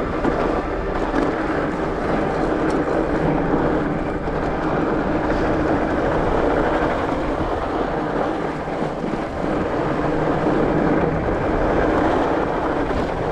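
Knobby fat-bike tyres rolling steadily over packed, groomed snow on a descent, a continuous even rumble with a faint steady hum in it, mixed with wind rushing over the microphone.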